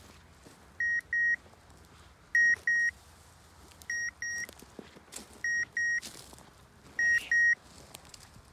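Hunting dog's beeper collar sounding its point signal: a pair of short high beeps about every one and a half seconds, which tells the hunter the dog is holding a point.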